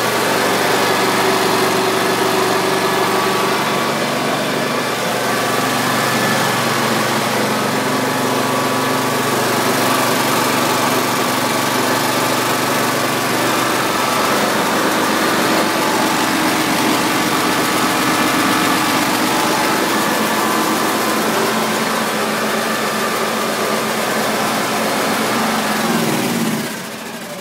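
Kawasaki FH541V 17 hp V-twin engine running at a steady speed, then winding down about a second before the end as it is shut off.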